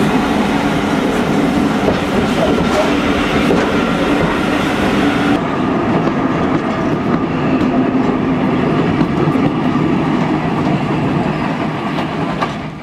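A steam-hauled passenger train's coaches rolling past along the platform: a steady rumble and clatter of steel wheels on rail. About five seconds in, the sound turns duller.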